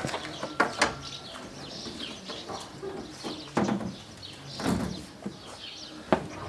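Birds chirping and cooing, with several sharp knocks and clatters scattered through; the knocks are the loudest sounds.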